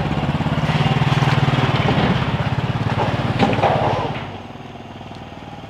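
Small motorbike engine pulling away and riding past close by, then fading off about four seconds in. A short louder clatter sounds about three and a half seconds in.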